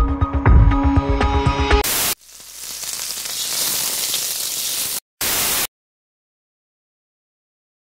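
Electronic music with a beat cuts off in a short burst of TV static, as on a channel change. A softer hiss swells for about three seconds, then another short burst of static, and then dead silence.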